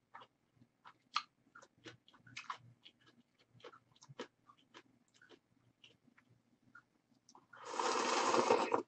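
Close-miked eating of instant ramen noodles: soft chewing with many small mouth clicks and smacks. Near the end, as a clump of noodles is lifted from the broth, a loud rush of noise lasts about a second and cuts off suddenly.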